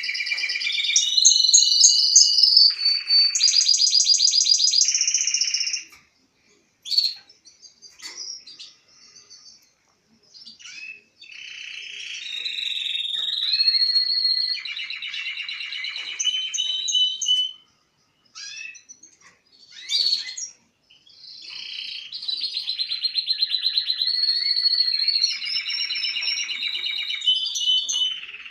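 Male domestic canary singing: three long song phrases of fast trills and rolling runs of repeated notes, separated by short pauses with a few scattered chirps.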